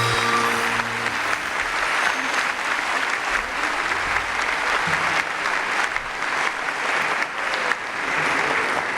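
Audience applauding and clapping steadily as a song ends; the music's last held notes fade out within the first second or so.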